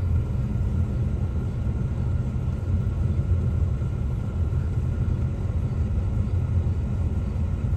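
Steady low rumble of a car heard from inside the cabin, engine and road noise with no distinct events.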